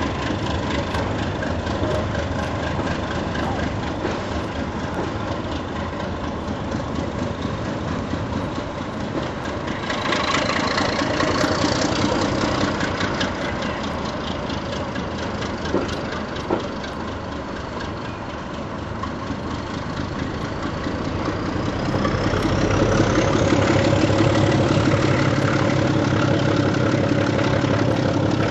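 Diesel locomotive engine running steadily, growing louder about ten seconds in and again from about three-quarters of the way through, each time with a high whine that climbs in pitch as the engine note rises.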